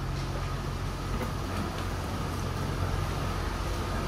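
Steady low engine hum of an idling diesel train at a station platform, with a faint steady high tone over it and a few faint ticks.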